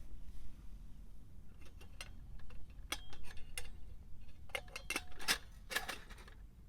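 Small metal camp gear being handled: an irregular run of sharp clicks and light clinks, a few of them ringing briefly, over a low steady rumble.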